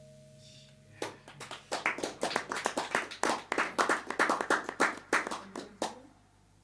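A small audience applauding, the separate hand claps distinct, starting about a second in and stopping about six seconds in. The last piano chord is still dying away as the clapping begins.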